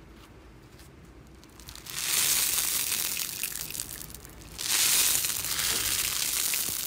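Slime being squeezed and pressed close to the microphone: faint handling at first, then from about two seconds in two long runs of loud crackling and crunching, with a brief lull between them.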